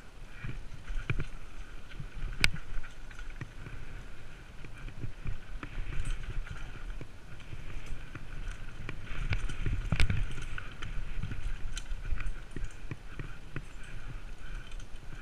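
Downhill mountain bike clattering over a rough trail at speed: irregular rattling and sharp knocks from the bike over a steady low rumble, with the hardest hits about two and a half seconds in and about ten seconds in.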